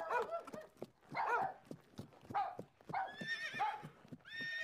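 Short pitched animal-like calls, one about every second, each bending up and down in pitch, with sharp clicks between them.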